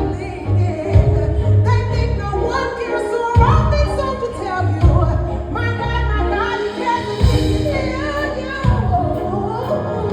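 Song with a singer holding and bending long sung notes over a bass line.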